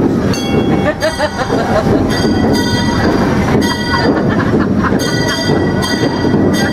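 Cedar Point & Lake Erie Railroad steam train running on its track: a steady rumble, with a high metallic ringing that comes and goes about every second and a half.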